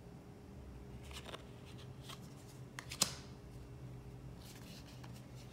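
Tarot cards being handled and moved onto a stack: a few soft scrapes and flicks of card stock, with one sharper card snap about three seconds in.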